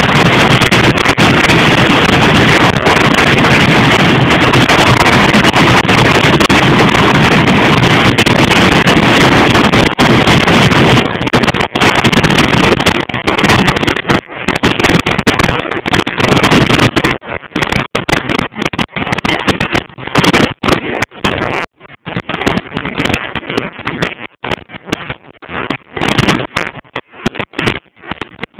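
Loud, overloaded noise of a fairground ride, steady at first, then turning choppy and breaking up in short dropouts about halfway through.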